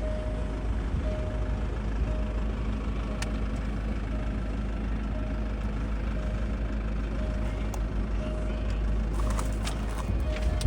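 Steady low rumble of an idling vehicle, with a faint beep repeating a little more than once a second.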